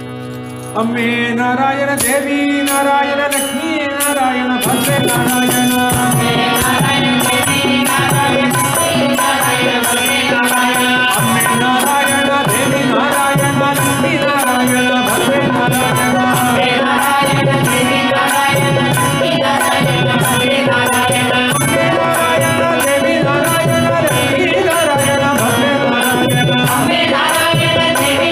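Devotional bhajan music in raga Brindavana Saranga: a held drone gives way about a second in to a louder melodic passage over a steady percussion beat.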